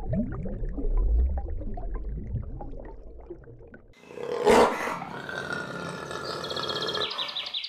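An animal's low, growling roars, rising and falling in pitch. About four seconds in they cut off suddenly and give way to a loud burst, then higher, steadier calls with a fast trill near the end.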